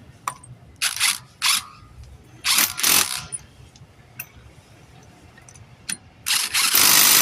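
Impact wrench run in short bursts spinning lug nuts onto a wheel, four bursts in all, the longest and loudest near the end.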